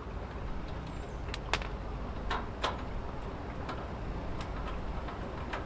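Scattered light metallic clicks and ticks, about seven in all, the sharpest about one and a half and two and a half seconds in, as a hand screwdriver works the fastenings of a console connector out of a steel switch front panel. A low steady rumble lies underneath.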